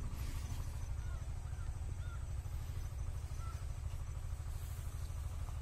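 A steady low rumble with a few faint bird chirps over it.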